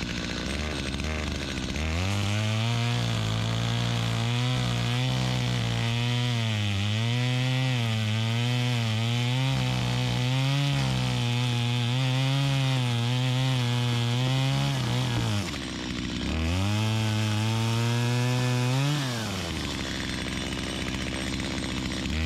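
Chainsaw cutting through a dead beech log. The engine idles for about two seconds, then runs at full throttle under load for about thirteen seconds, its pitch wavering as the chain bites. It drops briefly, revs again for a few seconds, falls back to idle, and revs up once more at the very end.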